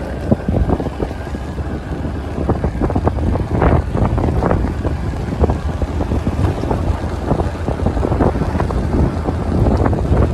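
Motorcycle ride on a rough road: wind buffeting the microphone over the engine and road noise, with many short knocks.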